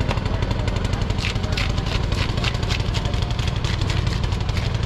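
An engine idling steadily with a fast even pulse, and a run of sharp clattering knocks between about one and three seconds in.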